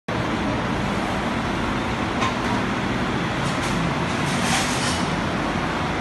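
Steady mechanical background roar, with a few light rattles of plates in a plastic dish rack being handled on a stainless steel counter about two seconds in and again near the middle.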